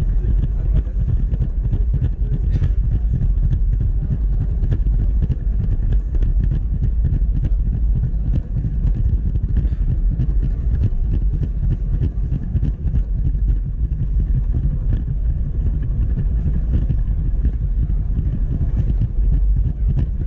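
Building-brick model train running along its plastic track, heard from a camera riding on it: a steady low rumble of wheels and motor with frequent light clicks.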